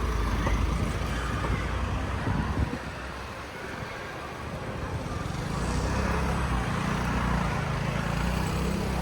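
Street traffic: motor vehicles passing with a low engine rumble that eases off about three seconds in and builds again a couple of seconds later.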